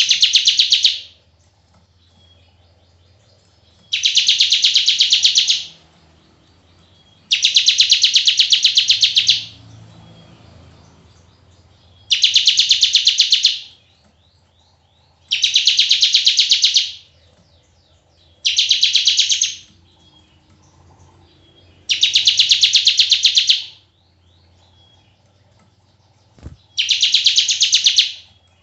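Bar-winged prinia (ciblek) giving its 'bren' song: a fast, buzzing trill in bursts of one to two seconds, repeated about eight times every three to four seconds, with faint chirps in the gaps. It is a tutoring recording for training a white-rumped shama.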